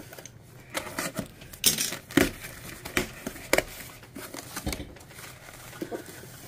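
Utility knife slitting the packing tape on a cardboard box, then the tape tearing and the cardboard flaps being pulled open: a string of short rips and scrapes, loudest about two seconds in, followed by softer rustling of cardboard.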